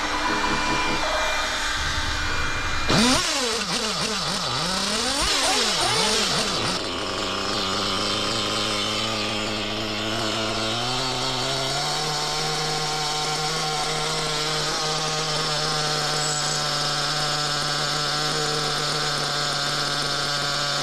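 Reds R5T nitro engine running: several quick rev blips a few seconds in, then running at a steady speed that steps up about eleven seconds in and holds. A steady hiss runs over it, a hissing noise the owner takes for a failing rear bearing.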